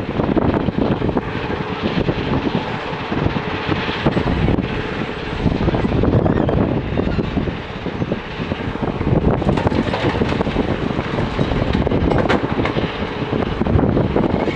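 JCB 3DX backhoe loader's diesel engine running under load while digging and loading dirt, a steady heavy rumble that dips briefly about halfway through and picks up again.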